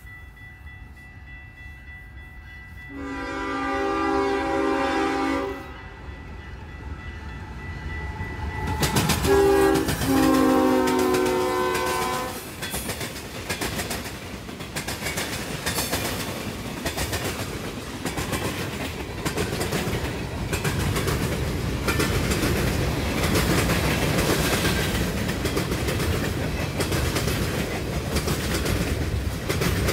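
Freight locomotive's horn sounds two long blasts, the second starting about nine seconds in as the train arrives. Then freight cars roll past close by with a steady rumble and a rapid clickety-clack of wheels over rail joints.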